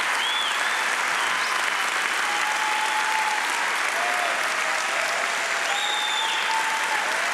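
A large church congregation applauding steadily, with a few voices cheering and calling out over the clapping.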